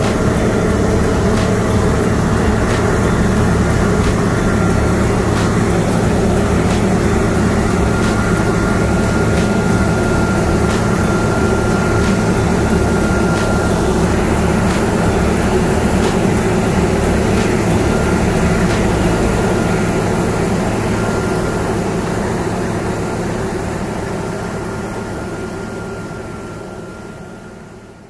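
New Holland CR8.90 combine harvester running steadily while cutting wheat, a continuous low mechanical drone with light regular ticks. It fades away over the last several seconds.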